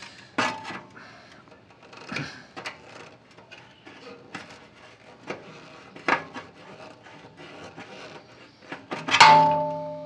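A thin metal tool picking and scraping at the corroded steel of a Series 1 Land Rover front grille panel, in scattered taps and scrapes. Near the end a loud metallic clang, and the steel panel rings on for a second or more.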